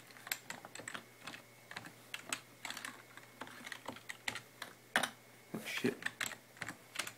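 Computer keyboard keys being typed, an irregular run of clicks a few per second, entering a setup password.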